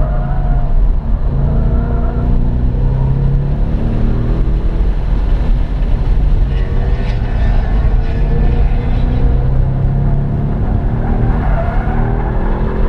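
Ford Mustang GT's 5.0-litre V8 heard from inside the cabin while being driven hard on track, its pitch climbing under acceleration and dropping off several times, over steady road and wind noise.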